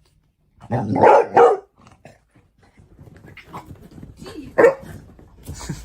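A dog barking: two loud barks in quick succession about a second in, then quieter scattered sounds and one more bark late on.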